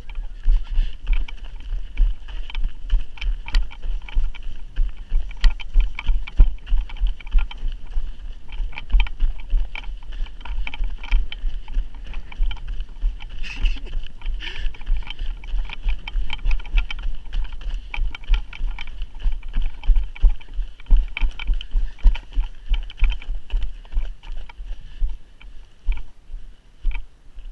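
Running footsteps crunching on snow, about two heavy thuds a second, each jolting the body-worn GoPro camera.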